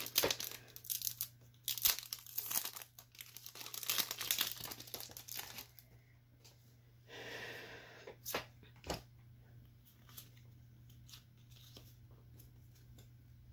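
A foil Pokémon Celebrations booster pack being torn open and crinkled in the hands for about six seconds. This is followed by a short rustle and a few faint clicks.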